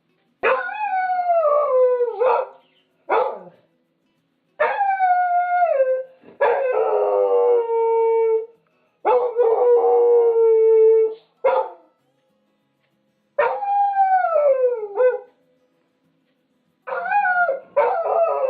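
Dog howling: a string of long howls, several sliding down in pitch, broken by short pauses and a few brief yips.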